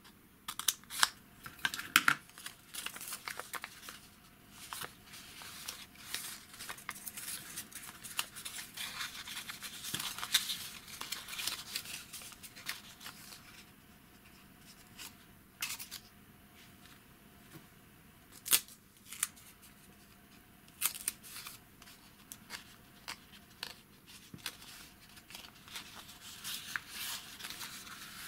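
Scissors cutting thin paper, with a few sharp snips in the first two seconds, then the paper strip being handled, creased and folded by hand, rustling between sharp crackles and clicks.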